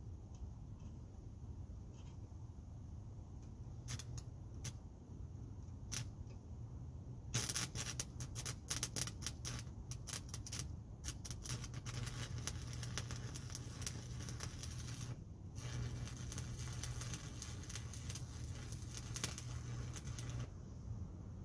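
Electric arc welding: a few clicks, then a crackling weld arc starting about seven seconds in and running for about eight seconds. After a brief break a second bead crackles for about five seconds, over a steady low hum.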